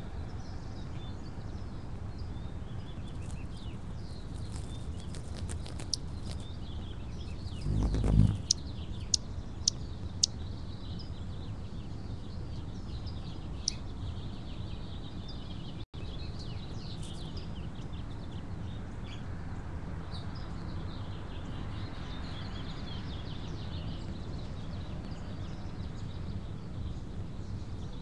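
Backyard songbirds chirping and singing throughout over a steady low hum. There is a brief low rumble about eight seconds in, followed by a few sharp clicks.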